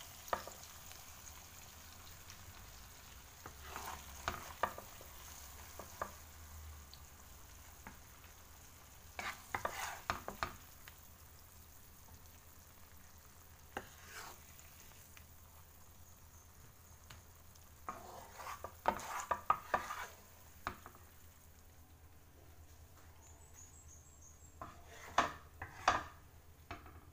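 A wooden spatula scrapes and knocks against a frying pan in short clusters as cooked prawns in tomato sauce are lifted out. Under it, the sauce left in the hot pan sizzles faintly, fading out near the end.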